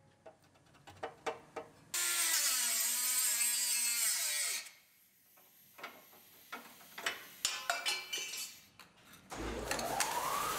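A power tool runs hard on the steel bracket and frame rail for a few seconds, its pitch dropping as it bites. Light metal knocks and clinks come before and after. Near the end a tool starts again and spins up, its pitch rising.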